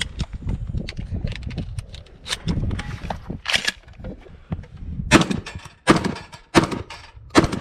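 Gunshots: one about three and a half seconds in, then four more at roughly one-second spacing in the second half.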